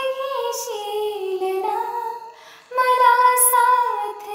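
A woman singing a slow, melodic Marathi love song with long held, gliding notes. One phrase fades out about two and a half seconds in and the next begins just after.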